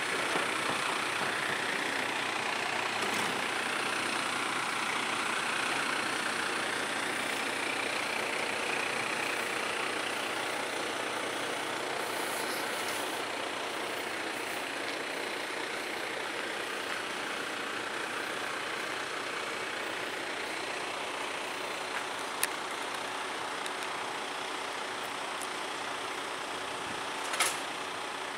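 Boom delivery truck's engine running steadily. Two sharp knocks stand out in the second half.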